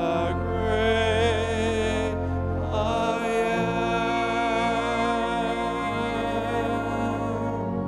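Slow music with long held notes over a sustained bass that shifts about three seconds in.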